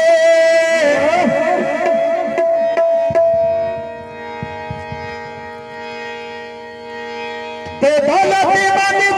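A man singing through a microphone and PA, holding a long wavering note over a steady sustained instrumental chord. The voice drops out about four seconds in, leaving the held chord alone and quieter, then loud singing comes back near the end.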